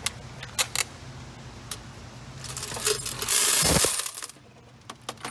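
Coins from a vending machine's coin box being dumped into a small bin: a few scattered clinks, then a loud rush of coins pouring for about a second and a half, stopping suddenly.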